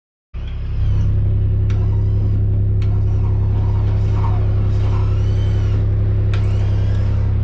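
Engine running steadily with a constant low hum, with a few short high squeaks over it.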